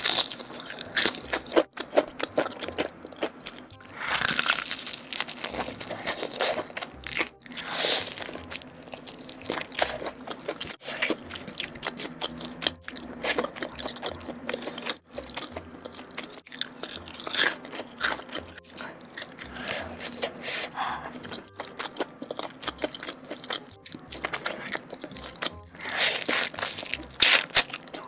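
Crispy fried chicken being bitten and chewed close to the microphone: loud crunches of the breaded coating at each bite, with chewing in between.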